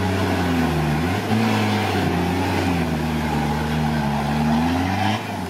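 Toyota Land Cruiser's engine held at high revs as the 4x4 churns through deep mud. The revs dip briefly about a second in and fall away near the end.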